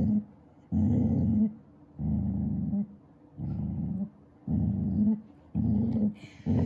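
Vizsla puppy growling in a run of low, rough growls, about one a second with short breaks between, as a hand handles its head near its mouth: food-guarding aggression.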